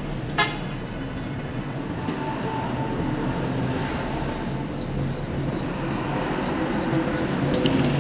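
A steady mechanical drone with a low hum running through it, and a single sharp click about half a second in.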